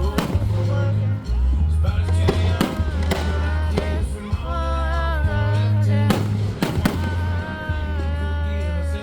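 Fireworks going off with several sharp bangs, the strongest about six seconds in, over loud music with a heavy bass and a singing voice.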